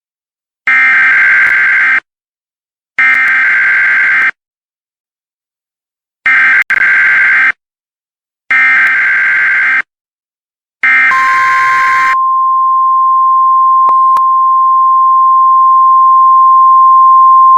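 Emergency Alert System data bursts: five harsh, buzzy bursts, each a little over a second long with short gaps between. They are followed, starting during the last burst, by a steady single-pitched alert tone near 1 kHz that grows gradually louder.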